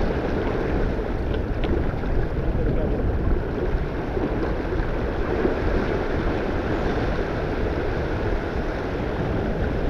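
Wind buffeting the microphone over the rush of water along the hull of a sailing yacht under way, a steady, even noise.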